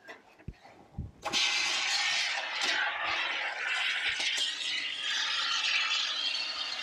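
Aerosol can of expanding spray foam, held upside down, hissing steadily as foam is sprayed into the hollow bottom of a sliding van door to deaden a metal rattle. Two light knocks come first, and the hiss starts about a second in.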